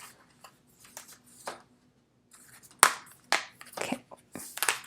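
Cardboard cards and plastic packaging being handled: irregular rustling and crinkling with sharp clicks and taps, the loudest a little under three seconds in and a quick cluster near the end.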